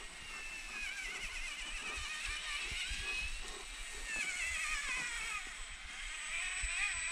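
Electric motor and gearbox of an RC4WD Miller Motorsports Pro Rock Racer RC crawler whining as it drives, the pitch wavering up and down as the throttle changes.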